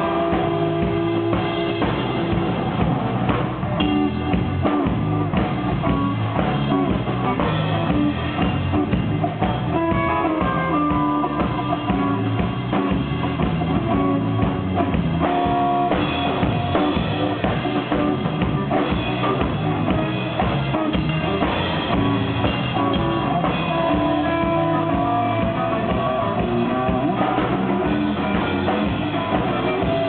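Live rock band playing an instrumental passage: electric guitar over bass and a full drum kit keeping a steady beat.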